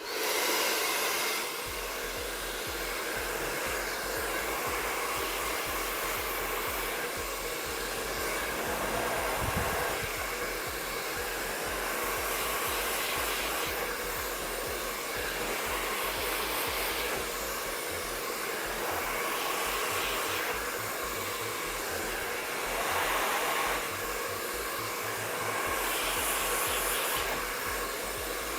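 MQ Pro Digital 2600-watt professional hair dryer running during a brush blow-dry: a steady rush of air that switches on at the start and swells and dips gently as the dryer is moved over the hair.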